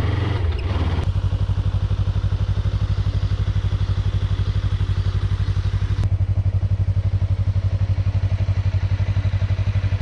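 A vehicle engine running steadily with a fast, even throb.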